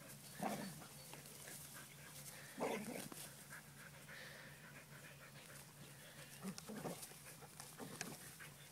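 Dogs worrying a snake in long grass: a few short, faint dog sounds, about half a second in, near three seconds and twice near seven seconds.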